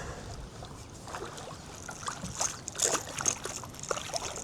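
Water splashing and dripping around a kayak, with scattered small splashes and taps.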